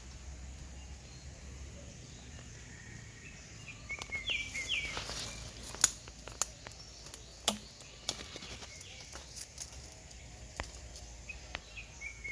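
Forest ambience over a low steady background noise. A bird gives a short run of chirps about four seconds in and again at the very end. Scattered sharp clicks and crackles come through the middle.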